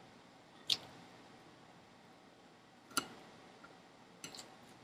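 A fork clicking against a plate while picking up salad. There is one click under a second in, another about three seconds in, and a quick cluster of clicks near the end.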